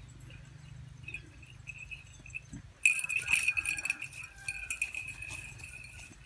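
Metallic jingling and clinking that starts suddenly about three seconds in and goes on as a dense run of quick clicks over a steady high tone.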